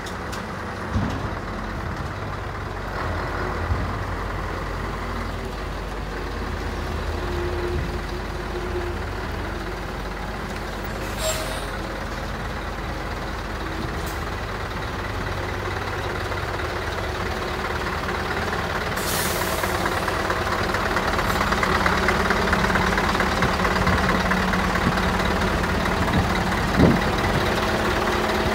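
Scania R164's 16-litre V8 diesel idling steadily, getting louder in the second half. Two short hisses of compressed air come about eleven and nineteen seconds in.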